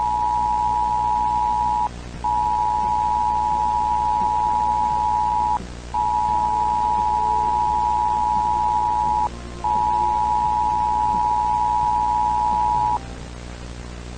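Emergency-broadcast attention signal: a steady two-note electronic tone sounding in four long beeps of about three seconds each, with short breaks, over a low droning hum. The tone stops about thirteen seconds in, leaving the hum.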